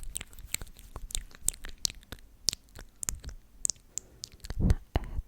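Close-miked ASMR mouth sounds: a quick series of sharp, wet clicks and pops, with one louder, fuller sound about four and a half seconds in.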